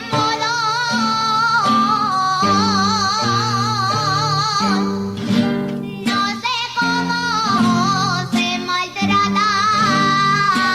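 Aragonese jota: a woman sings long, high notes with a wide vibrato over plucked guitar accompaniment.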